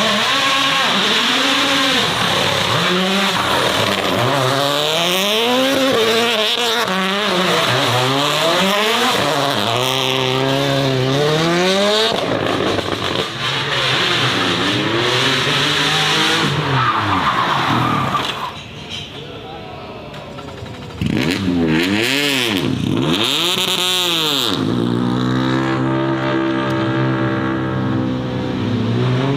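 Racing car engines accelerating hard and revving up and down through gear changes, in several short clips cut one after another. There is a quieter stretch of a couple of seconds about two-thirds of the way through.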